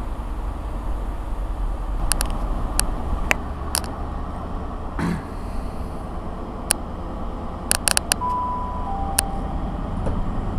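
Low, steady rumble of trains at a station platform, broken by a dozen sharp clicks and metallic knocks. Near the end comes a short two-note tone, the second note lower.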